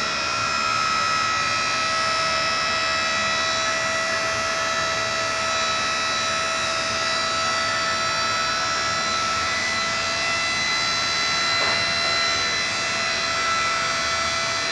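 Portable geotechnical drill rig running steadily during a direct push into the ground, a constant machine whine over an even rushing noise.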